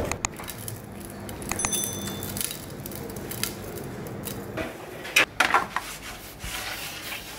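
Kitchen clatter of metal trays and utensils: scattered light clinks and knocks, a short metallic ring a little before two seconds in, and two louder knocks just after five seconds.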